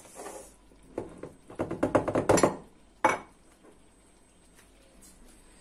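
Kitchen handling sounds: a soft knock, then a quick run of rattling clicks about a second in, and a single sharp knock about three seconds in, as seasoning containers are picked up and put down.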